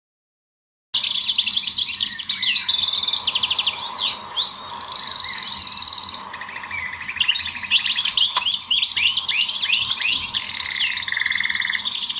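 Many small birds chirping and singing at once, a dense tangle of fast trills and quick downward-sweeping notes, starting suddenly about a second in, with one sharp click about eight seconds in.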